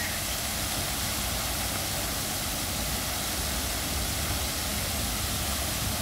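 Water fountain jets spraying and splashing down into the basin: a steady hiss of falling water with a low rumble underneath.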